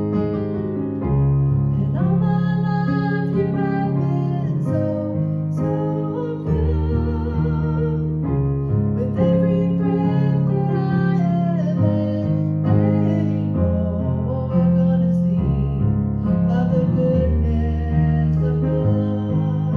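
Grand piano playing slow, sustained chords, with a woman's voice singing along in places.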